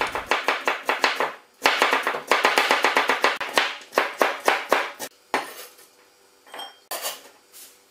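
Chinese cleaver chopping white radish into strips on a bamboo cutting board: quick, even strokes about five a second with a brief pause, thinning to a few scattered knocks near the end.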